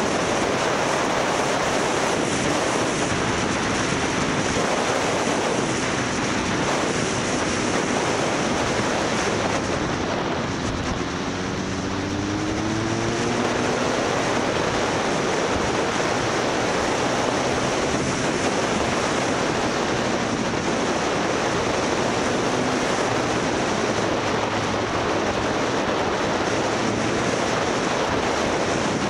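Motorcycle riding at speed: wind rushing over the microphone, with the engine running underneath. About ten seconds in the noise eases off briefly, then the engine note climbs as the bike speeds up again.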